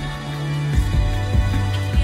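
Music with a steady beat over a held bass line; the bass drops to a lower note about three-quarters of a second in.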